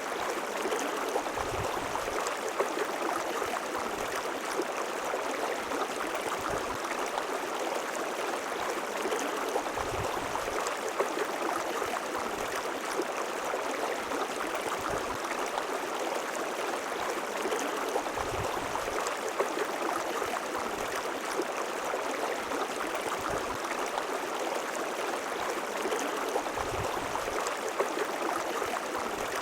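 River water flowing steadily over rocks: a constant rushing with gurgling and splashing, and soft low thumps now and then.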